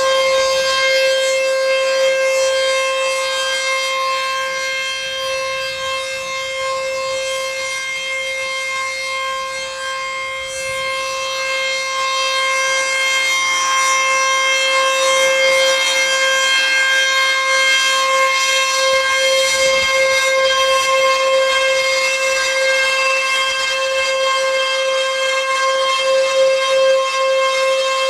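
ACA Screamer S-2 outdoor warning siren sounding a steady tone of one unchanging pitch during a siren test. Its level dips a little a few seconds in, then swells back.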